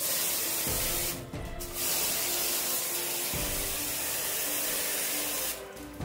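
High-pressure water jet from a handheld water-wash spray gun hissing against a split AC's indoor cooling coil, washing the dust out of it. It comes in two long bursts, with a short break about a second in.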